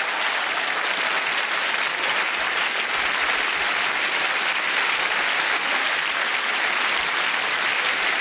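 Audience applauding steadily as a dense, even clatter of many hands clapping.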